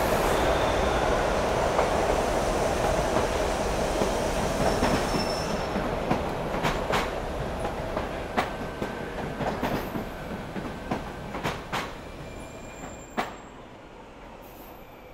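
Subway train running on the rails, a steady rumble with a squealing edge, fading away. As it dies down, scattered clicks and clacks stand out, the last sharp one near the end.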